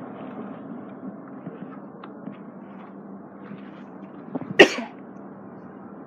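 A woman coughs once, short and sharp, a little past halfway, over a steady low background hum.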